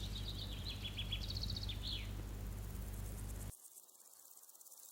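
Birds chirping in a background nature recording, short high chirps over a steady low hum. The whole bed drops away suddenly about three and a half seconds in, leaving only a faint hiss.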